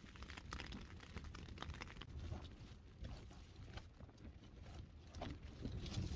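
Faint wind on a tent: a low steady rumble with scattered light taps and rustles from the tent fabric.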